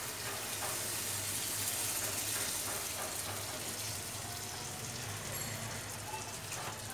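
Water poured into a hot pan of fried hilsa in mustard-paste masala, hissing and sizzling in the oil, then the thin curry bubbling as a spatula stirs it. The sizzle is a little louder in the first few seconds, then eases.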